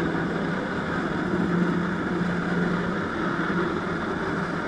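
Jet ski engine running steadily at a constant pitch, driving the water jet that feeds a flyboard's hose.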